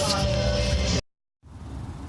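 Music playing that cuts off abruptly about halfway through, followed by a brief silence and then a quieter, steady background sound.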